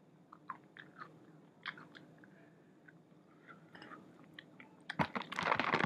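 A person chewing and biting a chicken wing, with soft wet mouth clicks, growing louder and busier in the last second.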